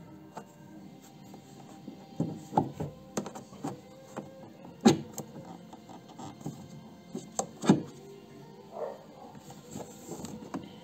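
Scattered clicks and knocks of metal parts being handled as a convertible roof's hydraulic cylinder is worked loose from its mounting, with a cluster of knocks about two seconds in and two sharper, louder knocks around five and eight seconds in.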